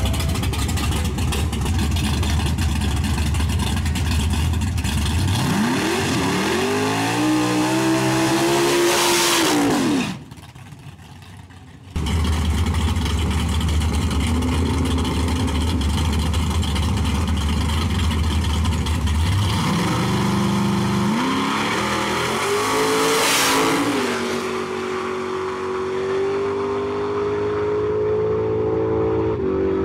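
Drag-race car engines idling with a loud, deep rumble; an engine then revs up in pitch and falls back. After a brief drop-out the rumble returns, and a car launches, its engine note climbing and then holding high as it pulls away down the track.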